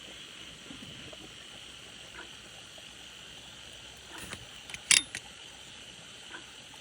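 Steady high chirring of night insects. Just before five seconds in comes a sharp clack, with a few lighter clicks around it, as the eel-catching tongs snap shut.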